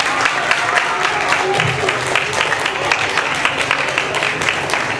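A crowd of children clapping and cheering, with many claps running close together.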